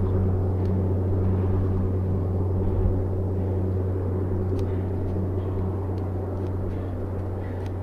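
An engine running steadily at a low, even hum that slowly fades, with a few faint ticks.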